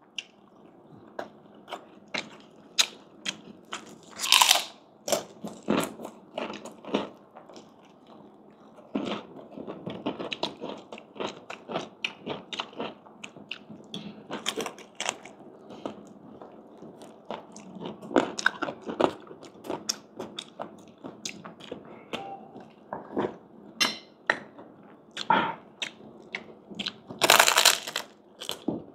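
Close-up biting and chewing of crispy fried pork skin: a run of crisp crunches with wet mouth sounds between them, and a few louder bites about four seconds in, near the middle and near the end.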